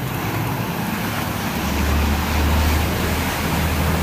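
Khlong Saen Saep passenger boat's diesel engine running with a low rumble that grows louder about a second and a half in, over the rushing of its propeller churning the canal water.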